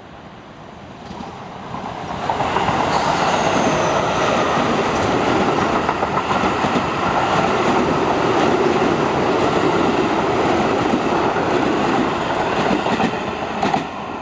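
Keio 8000 series electric train passing at speed, its wheels rumbling and clacking on the rails. It swells in over the first two seconds, stays loud while the cars go by, and falls away near the end.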